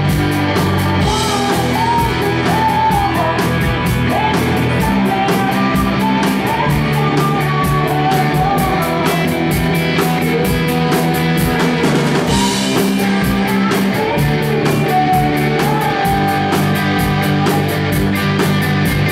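Live rock band: a woman singing lead over electric guitars, electric bass and a drum kit keeping a steady beat.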